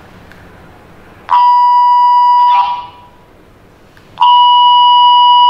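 Retevis RT33 walkie-talkie speaker sounding a loud, steady electronic tone twice, each lasting just over a second, over a faint hiss. A short burst of static follows as each tone cuts off.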